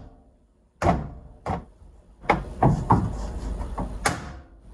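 A hand knocking and pressing a plastic emblem into a plastic car grille to seat it: two single sharp knocks, then a quicker run of knocks from about two seconds in.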